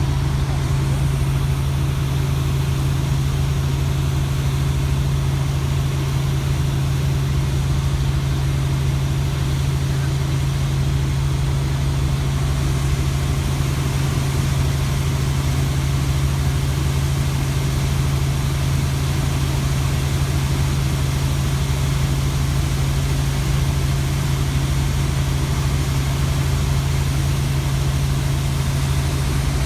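Helicopter running with a steady low drone that holds an even pitch and level throughout.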